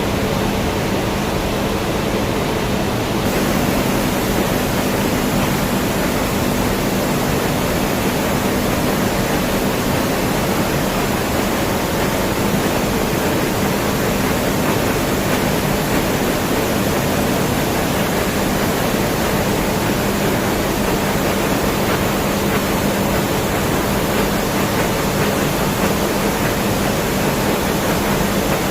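Steady, loud industrial plant noise from a strip-processing line's non-oxidizing furnace: an even rushing with a low, constant hum underneath.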